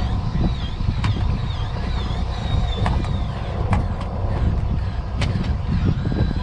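Fishing boat's engine running with a steady low rumble, with a high wavering whine over it during the first half and a few sharp clicks scattered through.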